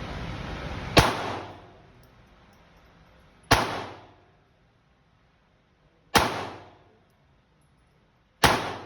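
Four single shots from a Taurus TX22 .22 LR semi-automatic pistol, fired a couple of seconds apart, each a sharp crack that dies away over about half a second. A steady hiss fills the first second and stops at the first shot.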